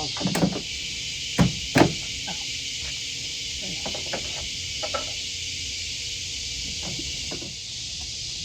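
A few sharp plastic clicks and knocks, three loud ones in the first two seconds and fainter ones after, as a tail light bulb socket is fitted back into an H2 Hummer's tail light housing. A steady hiss runs behind.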